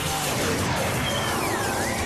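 Animated sci-fi action soundtrack: music over a dense, noisy rumble of effects, with a whine that swoops down and back up in pitch about a second in.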